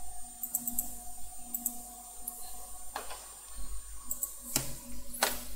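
Computer mouse clicking in short scattered groups, with a few louder clicks in the second half, over a faint steady electrical hum.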